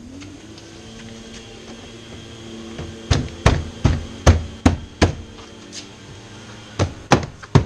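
Car door trim panel being struck to seat its clips: sharp knocks about two to three a second, a run of five starting about three seconds in and another run near the end, after a low steady hum.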